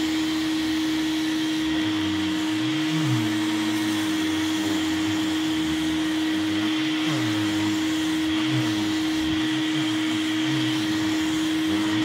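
Aerus/Electrolux Globaltek Guardian C135B cylinder vacuum cleaner running, its hose nozzle worked over sofa upholstery and sucking up crumbs. There is a steady motor whine over rushing air, with a lower note that keeps rising and falling.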